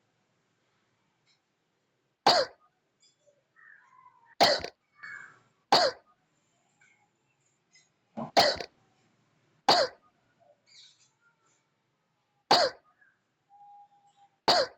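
A person coughing: about seven single, sharp coughs, spaced one to three seconds apart.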